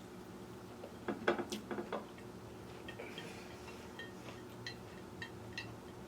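Cutlery clinking and scraping against a dish during a meal: a quick cluster of sharp clinks about a second in, then scattered light taps with a faint ring.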